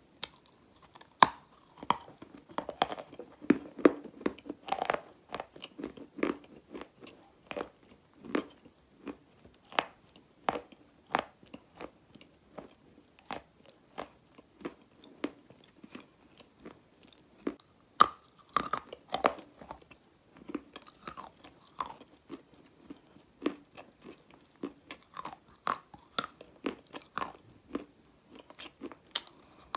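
Dry black edible clay being bitten and chewed close to the microphone: irregular crisp cracks and crunches, a few sharp loud snaps among them.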